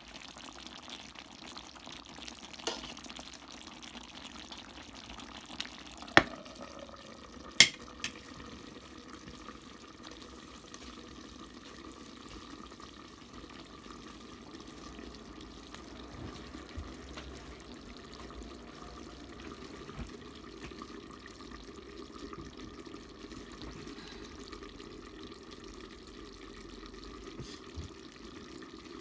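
Adobo sauce of coconut milk simmering in a wide metal pan, with a steady bubbling hiss while spoons stir it. About six and seven and a half seconds in come two sharp, ringing metallic clanks, then the covered pan keeps simmering.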